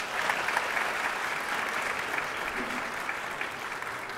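Audience applauding, the clapping loudest at the start and slowly easing off.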